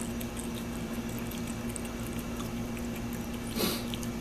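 A cat eating wet food from a paper plate: faint small chewing and licking clicks over a steady low hum, with one brief louder scuffle about three and a half seconds in.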